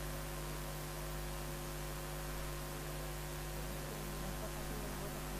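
Steady electrical mains hum with a constant hiss.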